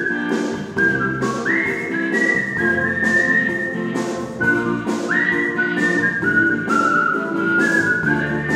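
Concert-style human whistling of a melody: clear held notes with quick upward slides into some of them, twice, over an instrumental backing with a steady beat.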